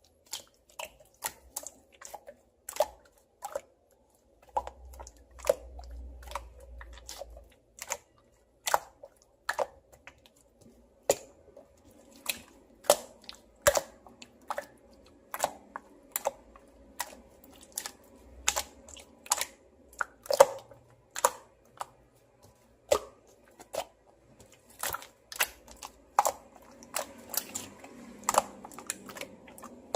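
Slime being pressed and stretched by hand, giving off irregular sharp clicks and pops as trapped air bubbles burst, about one or two a second.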